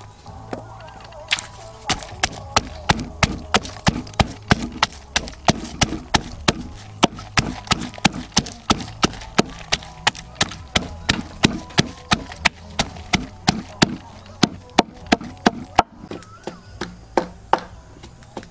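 A knife or cleaver chopping on a wooden cutting board: a steady run of quick, sharp strokes, about two to three a second, starting about a second in.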